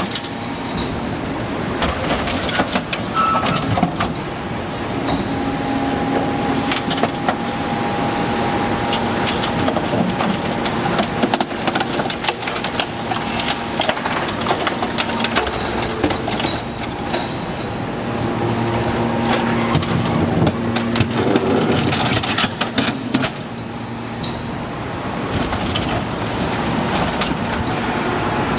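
Hydraulic scrap metal shear baler at work: the hydraulic power unit runs steadily with held tones, under repeated sharp clanks and crunches of scrap metal being pressed and sheared in the box.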